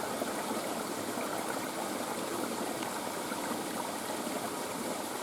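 Stream running: a steady rush of flowing water.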